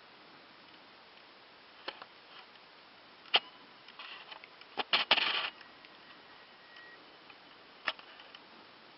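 Camera handling noise: a few sharp clicks and a brief rustling scrape about four to five and a half seconds in, against quiet surroundings.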